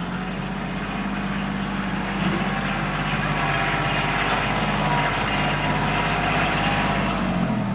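Compact tractor engine running steadily as the tractor works the pasture, growing louder about two seconds in as it drives closer and easing slightly near the end.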